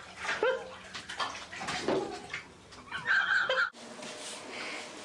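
Bathwater splashing in a tub, with a toddler's high squeal a little after three seconds in. The sound then cuts off abruptly to a quieter room hush.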